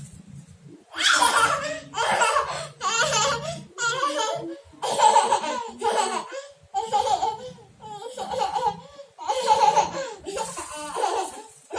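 A young child laughing hard in a long run of repeated bursts, starting about a second in.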